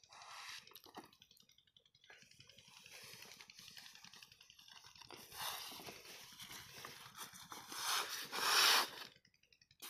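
Flat plastic lay-flat irrigation pipe rustling and scraping over sand as it is pulled straight and handled, in irregular swells that are loudest near the end.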